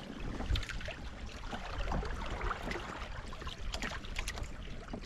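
Water trickling and splashing lightly along the hull of a Hobie Tandem Island sailing kayak under way, in small irregular splashes.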